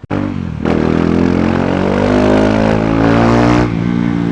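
KTM Duke 390's single-cylinder engine through its stock exhaust, accelerating hard. The pitch climbs steadily for about three and a half seconds, then drops near the end and holds steady.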